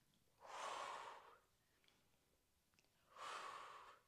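Two slow, airy breaths from a woman exercising, about a second each and a few seconds apart, picked up close by a clip-on microphone. The breathing comes with the effort of a controlled seated twist exercise.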